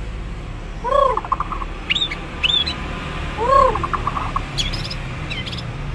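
Birds calling. One bird repeats a low, arched note followed by a quick stutter of notes, twice, about two and a half seconds apart. Shorter, higher chirps from another bird fall between these calls, over a steady low hum.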